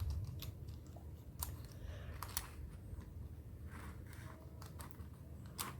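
Plastic pieces of a budget 4x4 Rubik's cube clicking as a corner piece is worked into place: a few scattered light clicks, the clearest one near the end.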